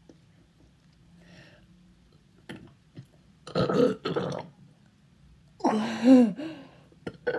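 Two loud burps from a man, each about a second long, about three and a half and six seconds in. The second wavers in pitch. A third begins just at the end.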